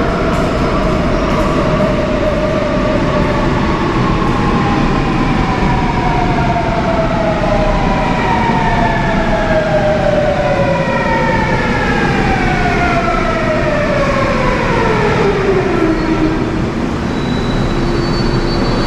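Seoul Subway Line 8 electric train braking as it pulls into the station: its traction motors whine in several tones that fall steadily in pitch, then level off low as the train comes to a stop near the end.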